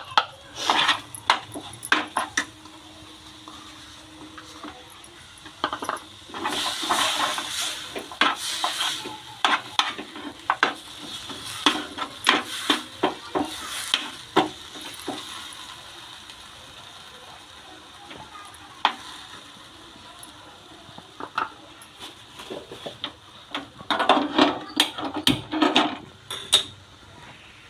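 A spoon stirring in a pan, scraping and clinking over and over as jaggery is mixed into ginger roasted in mustard oil, with a faint sizzle underneath. There are two longer bouts of scraping, about a quarter of the way in and again near the end.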